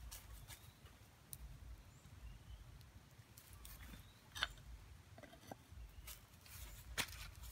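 Faint handling sounds around a clay cooking pot: a few light clicks and taps, the sharpest near the end as the clay lid is set and pressed onto the pot, over a low steady rumble.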